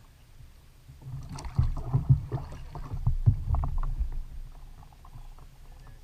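Irregular knocks and bumps against a plastic fishing kayak over a low rumble while a speckled trout is handled and lifted aboard, then it settles to a quieter low murmur.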